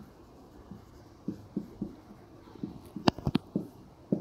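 Marker pen writing on a whiteboard: a string of short, irregular taps and scratches as letters and bonds are drawn, busiest and loudest a little after three seconds in.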